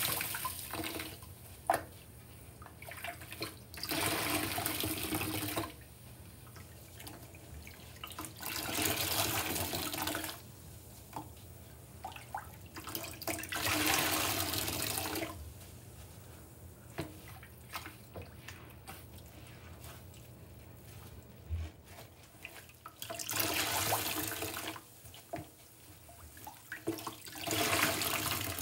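A soaked kitchen sponge squeezed by gloved hands over a sink of soapy water, about six times. Each squeeze sends water gushing out for a second or two, with dripping and small splashes between.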